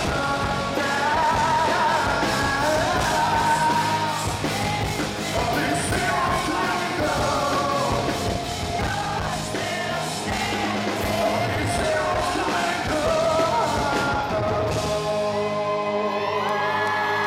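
Live rock band playing loudly, with a male lead vocal singing and belting over electric guitar and a dense drum beat. A couple of seconds before the end the drums drop out, leaving held guitar chords ringing.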